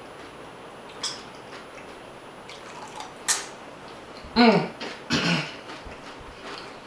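Close-up mouth sounds of a person chewing loaded nachos, with small wet clicks and smacks. About three seconds in comes a sharp smack, as from licking fingers. Just after four seconds there is a short vocal sound falling in pitch, then another brief noisy burst.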